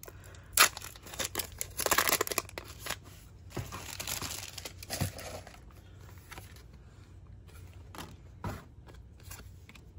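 Foil Pokémon booster pack wrapper crinkling and tearing as it is opened, with a sharp snap about half a second in and a burst of crinkling around two seconds. Quieter rustling and light taps follow as the cards are drawn out and handled.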